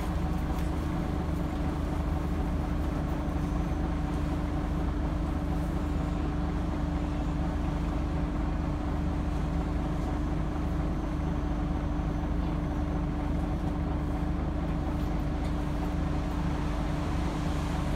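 Scania DC9 diesel engine of a Scania N94UD double-decker bus running at a steady idle, heard inside the passenger saloon as an unchanging low hum with a steady droning tone.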